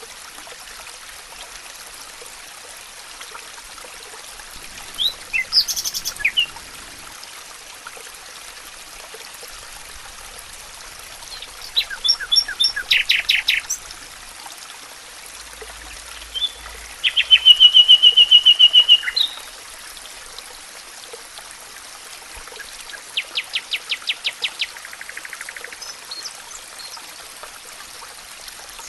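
Songbirds calling in four short bursts over a steady rush of running water. The loudest, a little past the middle, is a fast even trill lasting about two seconds.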